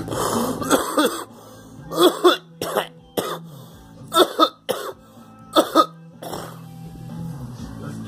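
People coughing repeatedly: about seven bouts of one or two sharp coughs over the first six and a half seconds, some with throat clearing, over background guitar music.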